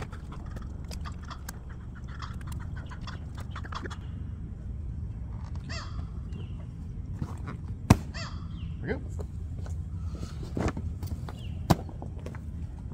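Straps and buckles being worked as a dry bag is cinched down onto a motorcycle's rear seat: rustling and small clicks, with two sharp snaps about eight seconds in and near the end. Birds calling in the background over a steady low rumble.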